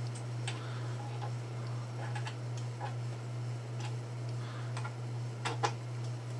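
Scattered light metallic clicks and taps as a grooving tool is handled and fitted into the tool post of a Proxxon mini lathe, with a sharper pair of clicks about five and a half seconds in. A steady low hum runs underneath.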